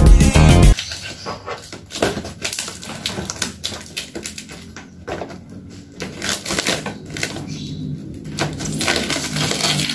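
A short blade slicing and scraping through packing tape on a cardboard box, a run of scratchy clicks and rasps. Background music cuts off about a second in.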